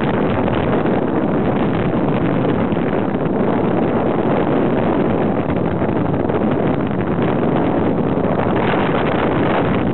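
Steady engine and road noise of an open vehicle driving over a dirt track, with wind on the microphone.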